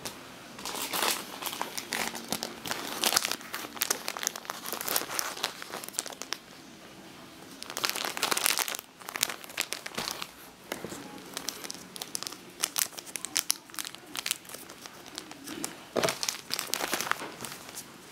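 Clear plastic packaging of yo-yo string crinkling as it is handled, in irregular bursts with short pauses.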